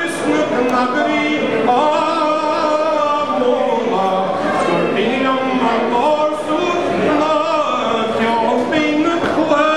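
A man singing unaccompanied into a microphone, a traditional sean-nós song in Irish, with long held notes that glide and waver between pitches.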